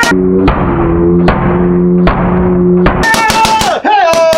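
Background music: sustained low chords under a drum hit about every 0.8 seconds, with a high, sliding lead melody coming in about three seconds in.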